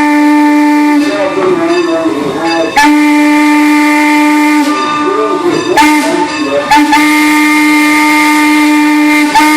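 Steam locomotive whistle blowing the road-crossing signal: long, long, short, long. Each blast is one steady chord-like pitch, and the last long blast stops near the end.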